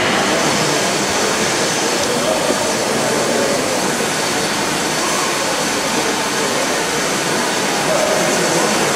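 Steam locomotive venting steam: a loud, steady rushing hiss that holds without a break.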